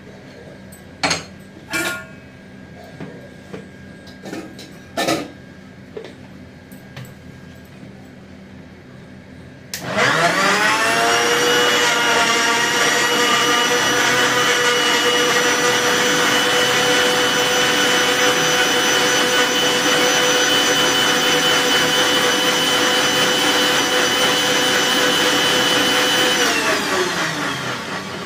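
Sujata mixer grinder blending a milky banana shake in its tall jar. A few sharp knocks and clinks come first; about ten seconds in, the motor starts with a rising whine up to speed. It runs steadily for about sixteen seconds, then winds down with a falling whine near the end.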